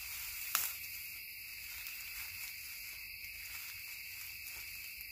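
Crickets trilling steadily, with faint scraping of a knife shaving a magnesium bar and one sharp click about half a second in.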